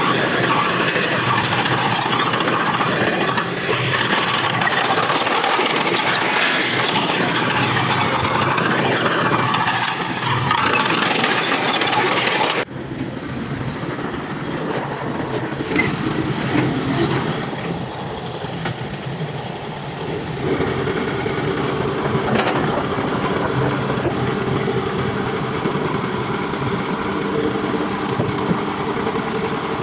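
Heavy diesel earthmoving machinery working, engines running with a dense rattling clatter. About 13 seconds in the sound changes abruptly to a quieter, steadier engine hum.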